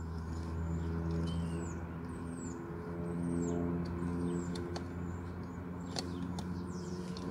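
Birds chirping in short falling calls over a steady low hum, with a few light clicks as a metal seat-switch trim piece is pressed into place around a car seat's power-seat controls.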